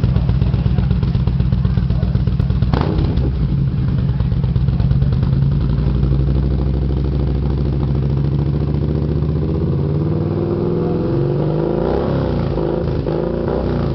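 Yamaha Midnight Star 950's V-twin engine running through an Escorpion aftermarket exhaust, idling with a steady low rumble. About ten seconds in, the engine speed begins to shift up and down.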